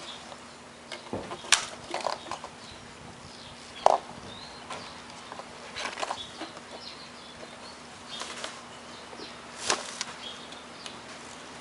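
Scattered clicks, knocks and rustling from parts being handled, over a faint steady hum, with the sharpest knock about four seconds in.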